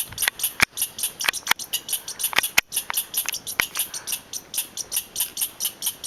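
A squirrel chattering an agitated alarm call at people: a fast, unbroken run of sharp, high chips, about six a second, with a few louder clicks among them in the first half.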